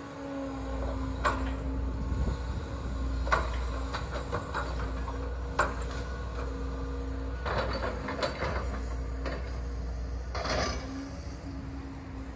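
Demolition machinery: a diesel engine running with a steady low rumble and hum, under a series of sharp knocks, crunches and clanks as building debris is broken and dropped.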